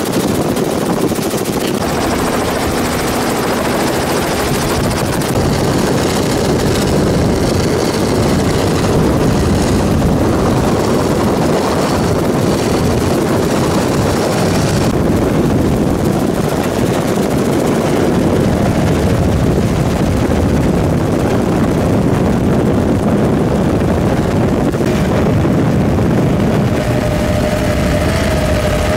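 Helicopter rotor and engine noise, loud and steady, with a steady whine joining in near the end.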